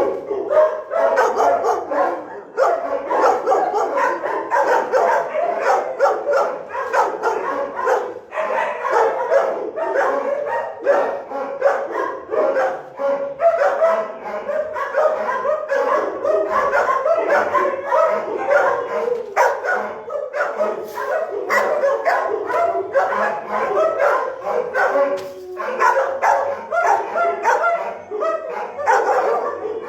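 Many large kennelled dogs barking at once, their barks overlapping into a constant loud din with no pauses.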